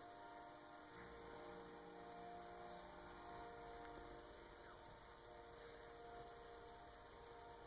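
Distant train horn heard faintly from miles away: several held tones sounding together as a chord, swelling and fading, with a low rumble joining about a second in.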